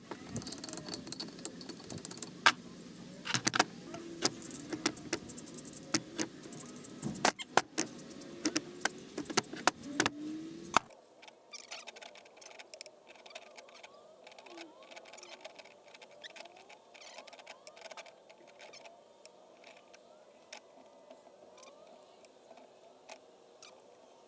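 Scattered metallic clicks and clinks of parts being handled, with sharper knocks through the first half; after a sudden cut about eleven seconds in, only faint light clicks remain.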